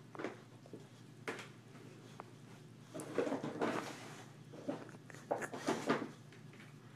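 A dog digging through a box of toys: irregular rustling and clattering as the toys are shoved about, heaviest in two spells about three and five and a half seconds in.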